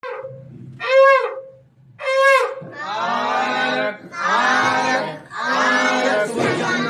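Two short blasts on a conch shell (shankh), each a steady note about half a second long and about a second apart. Then a group of voices chants a prayer together.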